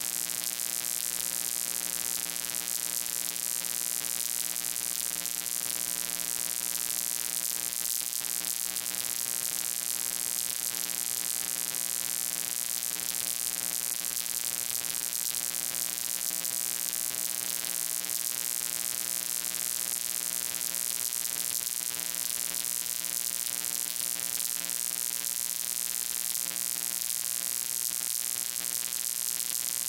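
Steady electrical buzz: an unchanging hum with many even overtones under a strong high hiss, with no change in level and no speech.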